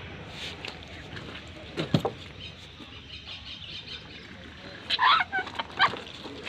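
Chickens squawking in short calls: one falling squawk about two seconds in and a quick run of calls near the end.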